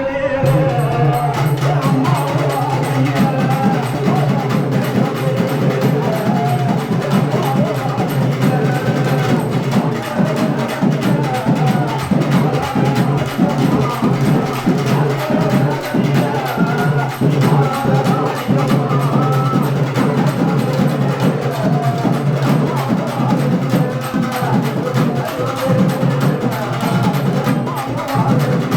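Fast, dense drumming with a wavering melody over it and a steady low drone underneath, typical of a Tamil temple festival percussion band.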